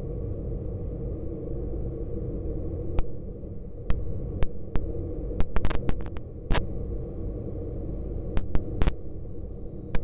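Cockpit noise of an L-29 Delfín jet trainer on its final approach glide: a steady low rumble and hiss with a faint high whine that fades near the end. Irregular sharp clicks and crackles break in, bunched in the middle.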